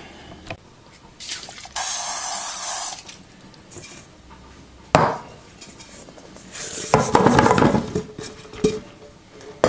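Seasoned red potato wedges poured from a stainless steel mixing bowl into a metal baking pan, tumbling and clattering in a dense run for about a second near the end, with a faint metallic ring. Before that there is a short hiss and, about halfway through, a single sharp knock on metal.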